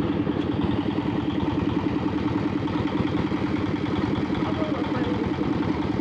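Small river ferry boat's engine running steadily under way, an even pulsing drone.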